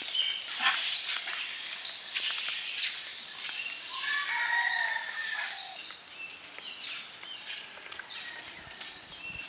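Birds chirping in short, high, repeated calls about once a second, with a brief lower warbling call about four to five seconds in, over a steady high insect drone.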